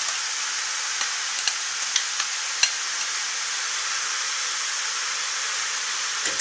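Steady sizzling of mushrooms and chopped onion frying in oil in hot pans, with the mushrooms' released juice cooking off. A few light clicks come in the first half as a spatula scrapes the onion from a bowl into the frying pan.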